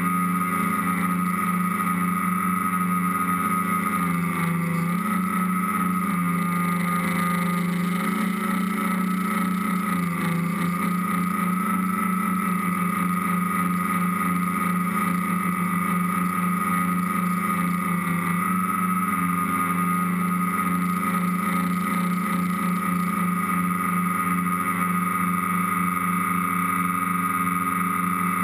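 Multirotor tricopter's electric motors and propellers, heard from its onboard camera, running with a steady buzzing whine whose pitch wavers slightly as the throttle changes.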